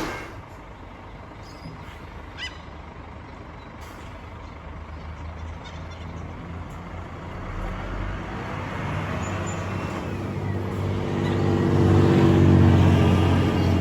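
Heavy diesel engine running with a low hum, growing steadily louder as it draws closer and loudest near the end.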